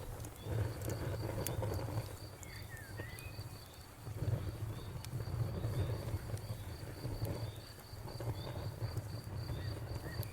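Wood fire crackling with scattered sharp pops over a low rumble, with a cricket chirping steadily a few times a second.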